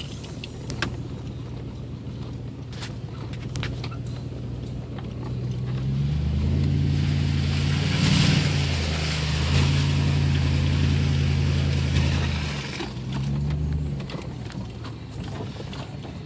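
A 2001 Toyota Tundra 4x4's engine heard from inside the cab while driving off-road. It revs up and holds for several seconds in the middle, with a rushing hiss at the loudest point, then eases off. Knocks and rattles come in the first few seconds.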